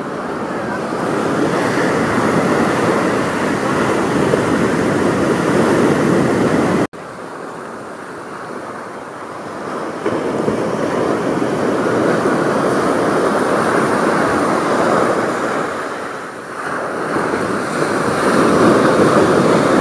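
Ocean surf breaking and washing up a sandy beach, a continuous rushing that swells and eases. It cuts out for an instant about seven seconds in and comes back quieter before swelling again.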